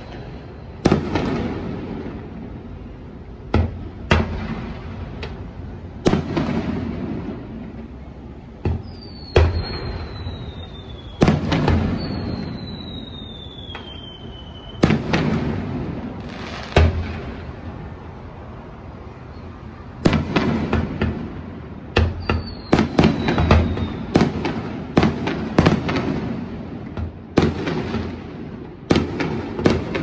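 Aerial fireworks shells bursting: single sharp booms a few seconds apart, each trailing off in a rumble, with several whistles that slide down in pitch. From about twenty seconds in, the bursts come quickly, several a second.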